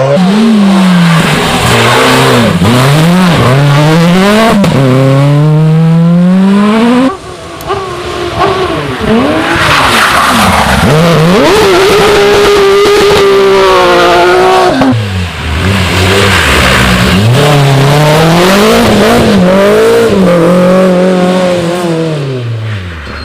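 Rally car engine at full throttle, revving hard and shifting through the gears, its pitch climbing and dropping again and again; the engine note cuts sharply about seven seconds in and fades near the end.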